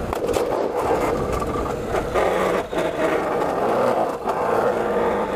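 A motorcycle riding a gravel forest road, heard from on the bike. The engine runs steadily, with wind rush and the tyres scraping over gravel. The sound dips briefly twice, once past the middle and once near the end.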